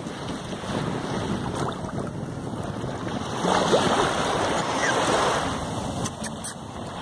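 Wind buffeting the microphone over shallow sea water lapping around the bodies of a wading man and dog, a steady rushing noise that grows louder from about three and a half seconds in.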